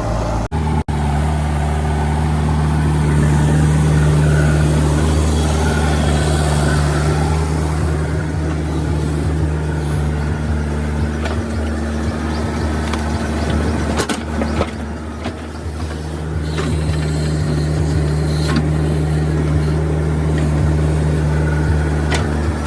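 Heavy diesel engine of earthmoving or farm machinery running steadily with a deep, even hum. Its note thins for a few seconds past the middle, then returns, and a few faint knocks are heard.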